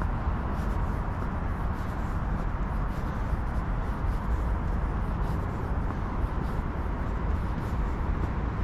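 Steady outdoor background noise, mostly a low rumble with a fainter hiss above it and no single event standing out.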